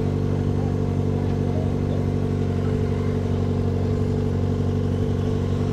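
Yamaha XJ6 motorcycle's 600 cc inline-four engine running steadily at a constant low engine speed, with no revving.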